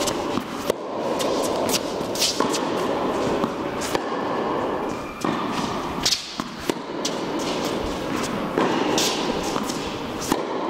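Tennis balls being struck by rackets in a groundstroke rally, a string of sharp pops every half-second to second, over a steady noise.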